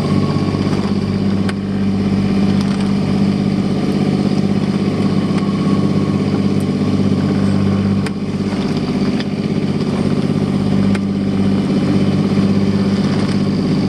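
A Cobra 850 sailing yacht's engine running at a steady speed while the boat motors in no wind, a constant low drone over the hiss of the wake, with a few faint knocks.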